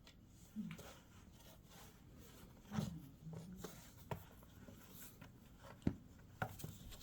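Two cats play-fighting: scuffling and rubbing against a surface, broken by several short sharp knocks, the loudest about three seconds and six seconds in, and a few brief low sounds.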